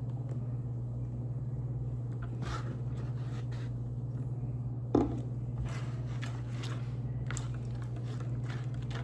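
Homemade slime being worked by hand as the activator takes hold: scattered small sticky clicks and squelches over a steady low hum, with a single sharp knock about five seconds in.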